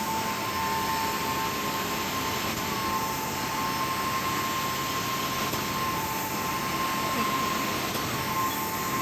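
Carpet-cleaning hot water extraction machine running steadily: a continuous rush of vacuum airflow with a high, steady whine.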